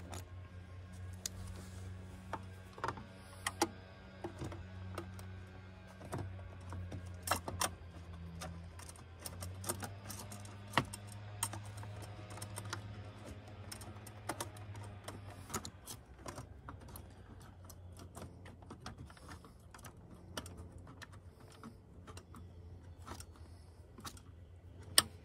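Irregular small clicks and taps of plastic parts as a spa heater tube and its union fittings are handled and seated into place. A low steady hum runs underneath and fades out about two-thirds of the way through.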